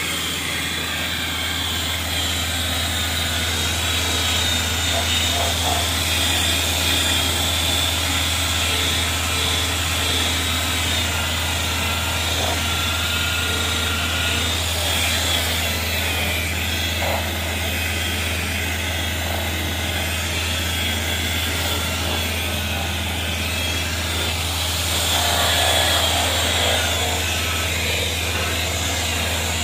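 Electric rotary polisher running steadily, its foam pad buffing polish on a car's painted body panel, with a constant motor hum and whine.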